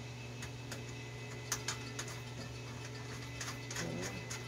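Irregular small metallic clicks and ticks of nuts and washers being handled and run onto a fuse box's mounting studs by hand, over a steady low hum.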